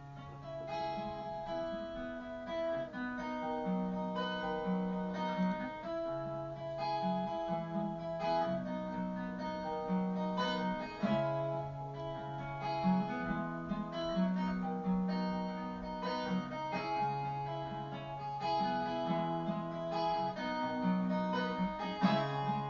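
Background music: strummed acoustic guitar with a repeating bass line.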